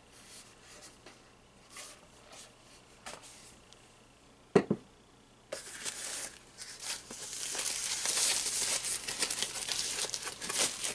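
Plastic packaging bag crinkling and rustling as a phone accessory is unwrapped, after a few faint handling taps and one sharp knock about four and a half seconds in; the crinkling starts about five and a half seconds in and keeps going.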